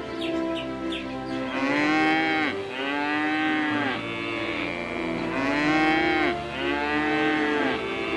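A cow mooing twice, each moo long and drawn out with a rising then falling pitch, over steady background music.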